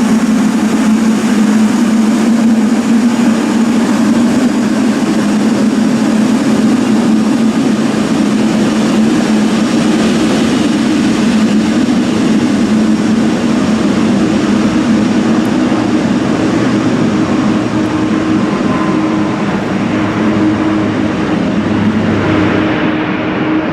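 Boeing 777-300ER's GE90-115B jet engines running with a loud, steady drone carrying a strong low hum.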